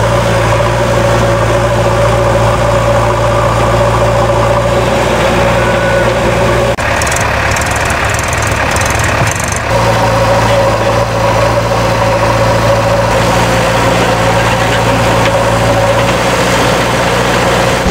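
Diesel engines of a JCB backhoe loader and a Mahindra tractor running steadily. The sound switches abruptly about seven seconds in and again about ten seconds in.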